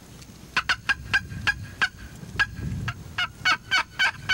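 Wild turkey gobbler gobbling twice, each gobble a fast rattling run of sharp notes, the second starting about three seconds in.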